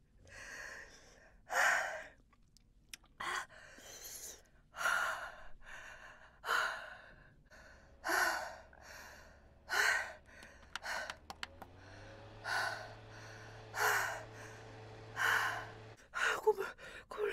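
A woman breathing hard in repeated gasps and heavy exhalations, one every second or two, from the mouth burn of the One Chip Challenge's super-hot chili chip. From about halfway a low steady hum runs underneath and cuts off suddenly near the end.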